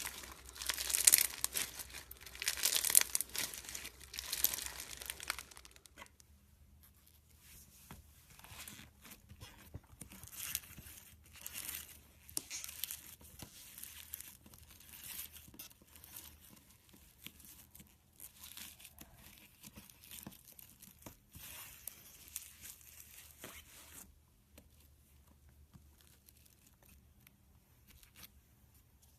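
Slime being squished and stretched by hand, crackling and popping with dense clicks. The crackling is loudest for the first six seconds, turns softer and sparser after that, and is faint near the end.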